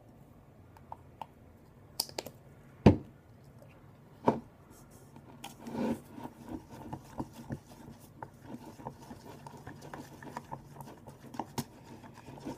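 Hands handling slime-making materials at a table: a few sharp knocks and taps as things are picked up and set down, the loudest about three seconds in, then from about halfway a run of small quick clicks and rubbing as paint is added and worked into the bowl.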